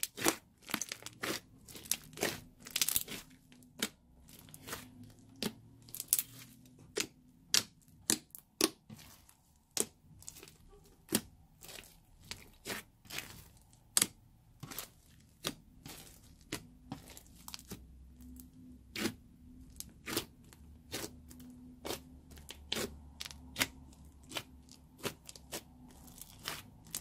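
Thick slime studded with foam beads being squeezed and kneaded by hand, giving a string of sharp, irregular pops and crackles, about one or two a second.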